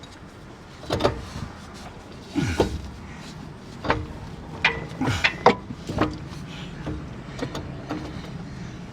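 Irregular metallic knocks and clinks as a truck's front driveshaft and tools are handled and worked into place, over a steady low hum.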